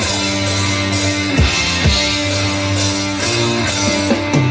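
Live rock band playing an instrumental break between sung verses of a song, with guitar chords held over a steady drum beat.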